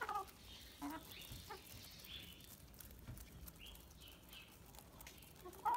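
Backyard laying hens softly clucking as they eat mealworms: a few faint, short calls scattered through, with a louder call near the end.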